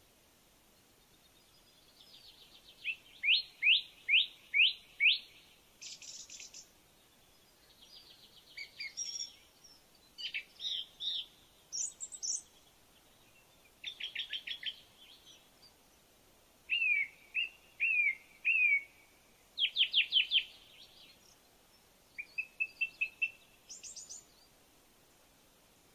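A songbird singing a string of short, varied phrases, each a quick run of four to six repeated clear notes, with a pause of a second or so between phrases.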